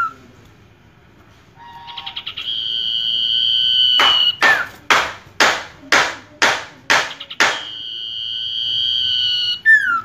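Common iora (sirtu) singing after about a second and a half of quiet. It gives a short buzzy trill, then a long steady whistle, then a run of about seven quick sweeping notes. Another long steady whistle follows, ending in a short down-slurred note.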